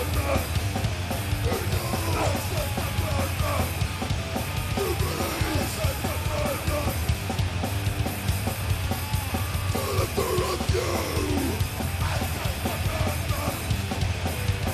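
A live band playing loud, heavy punk-metal: a drum kit pounding and electric guitars churning without a break.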